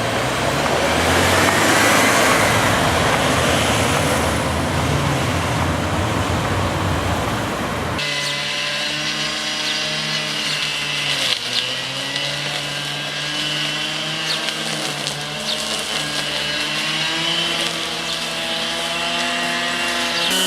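Loud city noise: a rushing, rumbling traffic noise with a low hum, changing abruptly about eight seconds in to the steady drone of an aircraft engine overhead, its pitch shifting slightly.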